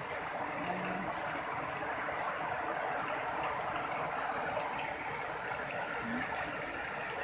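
Steady rain falling onto standing floodwater, an even, unbroken hiss of water.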